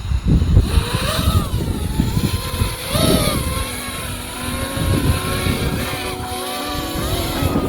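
5-inch FPV quadcopter's T-Motor V2306 motors and propellers whining, rising and falling in pitch with the throttle, over heavy wind buffeting on the onboard microphone.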